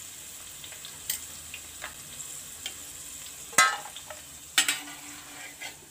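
Cashew nuts and raisins sizzling steadily as they fry in hot ghee in an uruli, while a metal perforated ladle scrapes and clinks against the pan to scoop them out. The loudest is a ringing clang about three and a half seconds in, with another knock about a second later.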